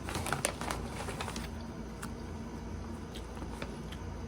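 Crunching of Mild Salt Doritos tortilla chips being bitten and chewed: a quick run of crisp crunches in the first second and a half, then a few scattered single crunches.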